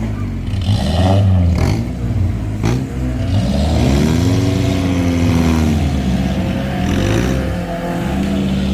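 A 4x4 off-road vehicle's engine working under load, its revs rising and falling, with a couple of sharp knocks in the first few seconds.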